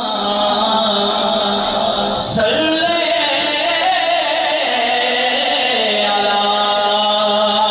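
A man chanting a naat into a microphone, amplified, in long held notes that slide slowly in pitch over a steady low drone.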